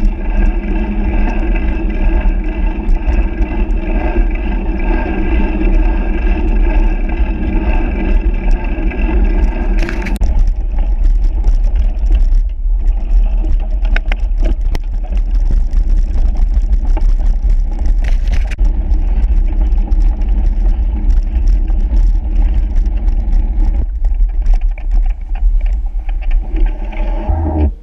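A motor vehicle running steadily, with a heavy low rumble and a steady hum. The tone shifts about ten seconds in, and the sound cuts off abruptly near the end.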